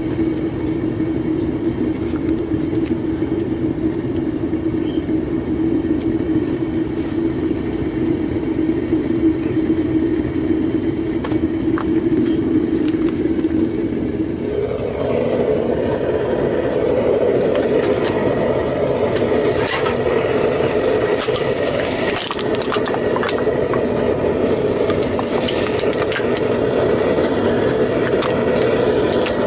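Propane burner firing into a homemade foundry furnace: a steady rushing flame with a low hum. About halfway through the hum steps up in pitch, and scattered crackles and clicks follow.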